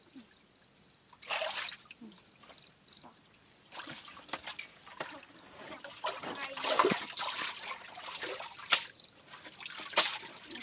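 Hands splashing and sloshing through shallow muddy water in a small pit while groping for fish, in irregular bursts, loudest in the second half.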